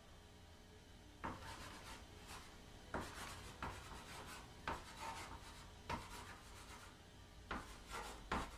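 Chalk writing on a chalkboard: sharp taps as the chalk meets the board, each followed by a short scratchy stroke, in uneven spurts starting about a second in.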